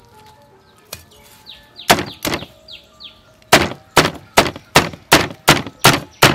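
Cleaver chopping a crisp deep-fried pork belly roll on a wooden chopping block. There are two chops about two seconds in, then a fast run of chops at about three a second through the rest.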